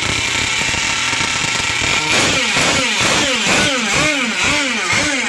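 Small RC boat engine running, then revved in quick repeated throttle blips from about two seconds in, about two a second, each rising and falling in pitch.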